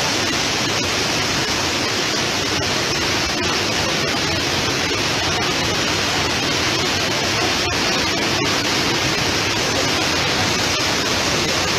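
Muddy floodwater rushing over a waterfall in spate and churning through the gorge below: a loud, steady wash of water noise.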